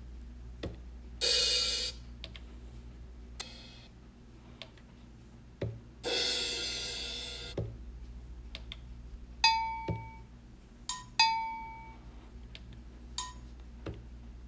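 Single drum samples auditioned one at a time from an Akai MPC Renaissance's browser. There is a short cymbal hiss about a second in and a longer fading cymbal around the middle. Two ringing, pitched cowbell-like hits come about two-thirds through, with a few short low kick thumps scattered between them.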